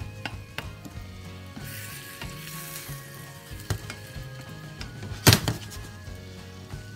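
Wooden spatula stirring and knocking against a frying pan while vegetables, ham and eggs sizzle, with soft background music. A few sharp knocks, the loudest about five seconds in.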